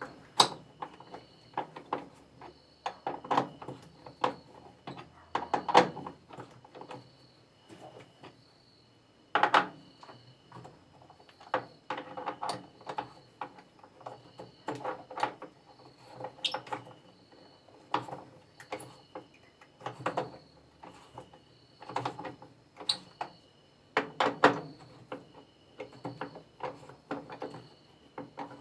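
A car jack being worked to pull a washing machine's basket, giving clusters of clunks and scrapes about every two to three seconds. A faint steady high whine runs underneath.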